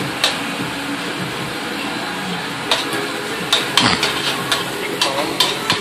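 Chopped shallots, green onions and red bell pepper sizzling in butter in a stainless steel skillet, stirred with a metal utensil that scrapes and clinks against the pan. The clinks are irregular and come more often in the second half.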